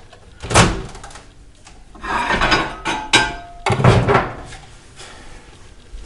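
A microwave oven's door being banged and pulled open: a sharp knock about half a second in, then clattering and a heavier thump a little after the middle.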